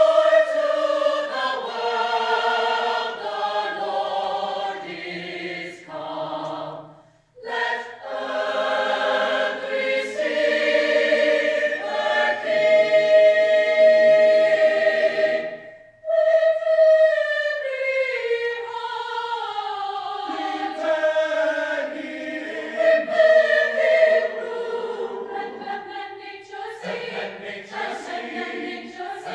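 Choir singing a holiday song in harmony, in sung phrases with a brief pause about seven seconds in and another short break about sixteen seconds in.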